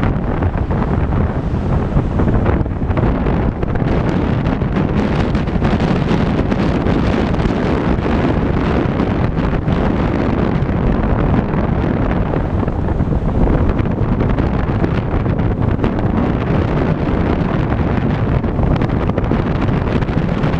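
Steady wind buffeting the microphone over the road noise of a car driving on a highway.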